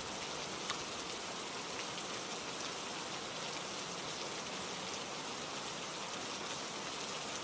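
Steady rainfall, an even hiss of rain falling on a surface with a few faint individual drops.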